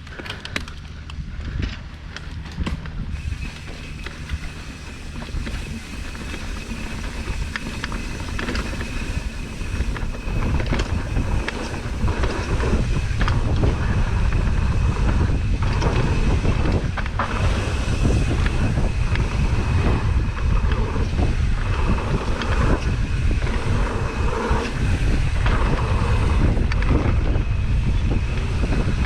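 Downhill mountain bike descent: wind rushing over the microphone grows louder as speed builds, with frequent knocks and rattles from the bike over rough trail. A thin, steady high whine runs under it from a few seconds in.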